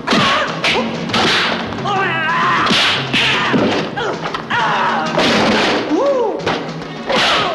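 Kung fu film fight sound effects: a rapid series of punch and kick impacts, mixed with shouted, wavering fighting cries.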